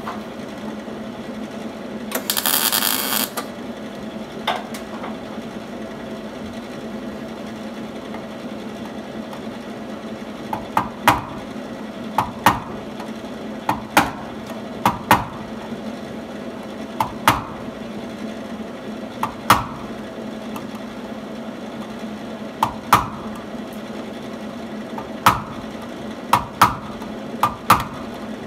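A body hammer tapping the sheet-metal patch panel on a 1950 Plymouth fender: sharp, ringing metal strikes, irregular and often in pairs, starting about a third of the way in. A steady hum runs underneath, and a loud hiss lasts about a second near the start.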